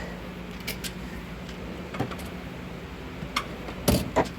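Steel toolbox drawers being shut and pulled open, with a few light clicks and then a heavier metal knock near the end, and tools rattling inside.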